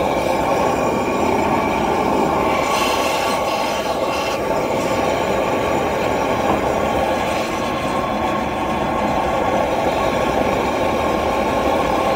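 Handheld propane weed-burner torch burning with a steady rushing flame, played over the top of a wooden fence post to char it.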